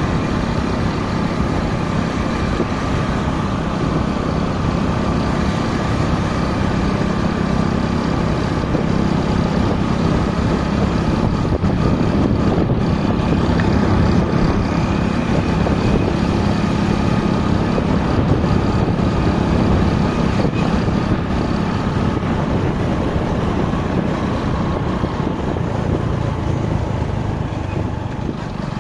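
Motorcycle running steadily at road speed: engine hum mixed with wind and road noise. The level holds steady, dipping slightly near the end.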